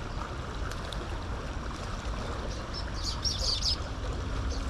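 A small bird chirping, a quick cluster of short high notes about three seconds in, over a steady low rumble of outdoor noise.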